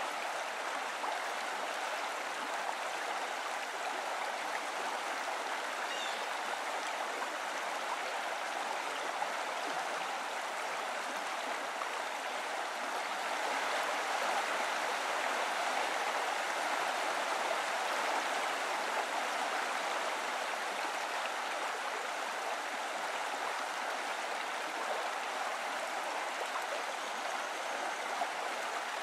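Steady rush of running water from a stream, swelling a little partway through.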